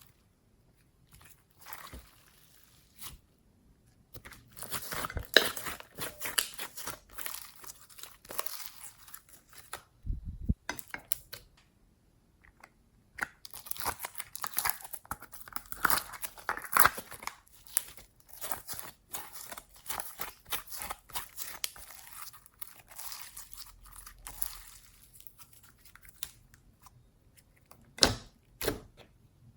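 Slime being squished, stretched and mixed by hand: a dense run of sticky crackles and pops, in two long spells with quieter gaps between, and a few sharp pops near the end.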